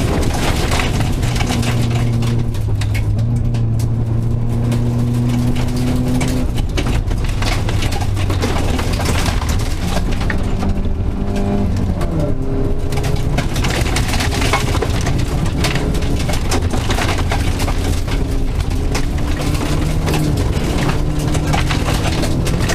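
Rally car engine pulling hard, heard from inside the cabin, with the revs rising and dropping with gear changes. Gravel crackles and rattles under the car throughout.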